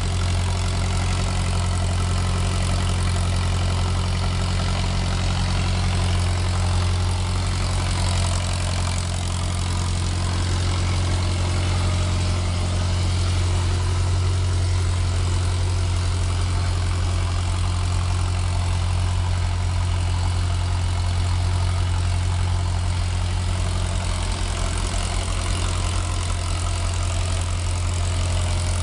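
Engine of a gas-fuelled generator set running steadily on producer gas from a bagasse gasifier: a constant low hum. The set is generating about 400 volts into a steaming water-tank load.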